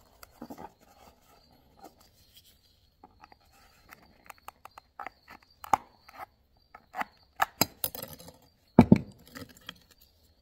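Plastic clicks, taps and light rubbing as the old emblem is pushed out of an 8th-generation Honda Civic airbag cover, its retaining rivets already clipped off. The clicks come irregularly, with a louder thump about nine seconds in.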